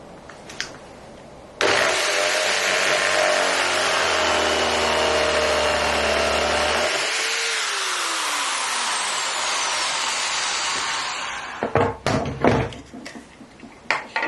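An electric drill's motor switches on abruptly about two seconds in and runs steadily for about five seconds, then is switched off and winds down with a falling whine over several seconds. A few sharp knocks and clatters follow near the end.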